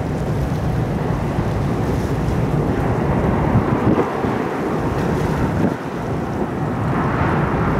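Wind buffeting the microphone: a steady, low rushing rumble.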